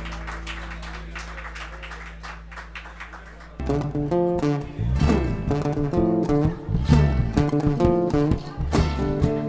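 Live folk music: the last held chord of a chacarera fades with a few light guitar notes, then about three and a half seconds in acoustic guitars start the next song's intro with strummed and picked chords.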